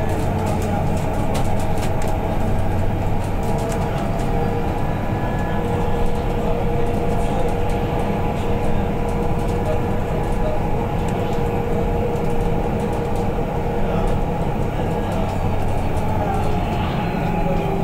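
Cabin of a BYD K9UB battery-electric bus on the move: steady low road and rolling noise, with a faint, slowly drifting whine from the electric drive.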